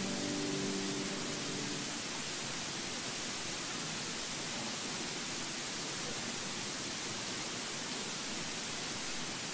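A held piano chord ends about two seconds in, the close of a prelude, leaving a steady hiss.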